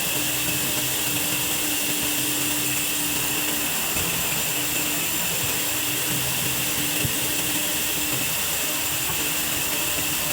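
Sawmill band saw running steadily through a log: a continuous high hiss with a faint low hum underneath.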